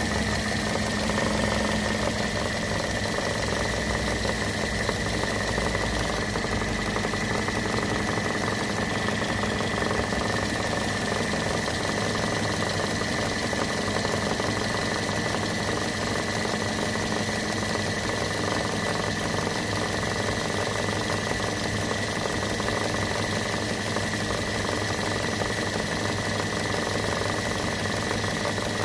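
Car engine idling under the hood with a steady high whine from the belt-driven accessories, which the owner takes for an A/C compressor low on oil.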